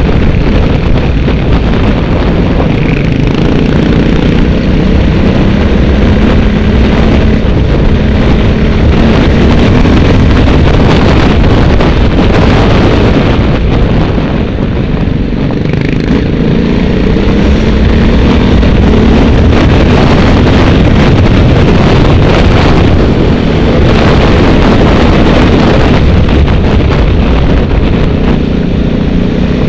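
A vehicle being driven, its engine note drifting gently up and down with the throttle, under a loud, steady rumble of road and wind noise.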